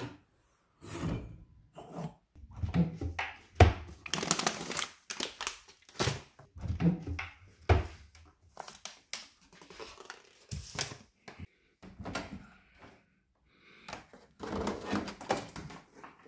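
Kitchen cupboard and fridge doors being opened and shut, with a string of separate knocks, thuds and rustles as jars, bottles and packets are handled on the shelves. Short gaps of silence fall between the noises.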